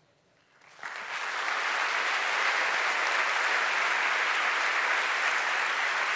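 Audience applauding, starting about a second in after a brief hush and then holding steady.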